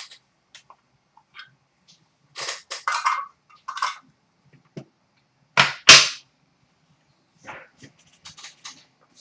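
Sharp clicks and snaps from handling trading cards and their plastic holders. There is a cluster of clicks a couple of seconds in, two loud sharp snaps a little past the middle, and a run of lighter clicks near the end.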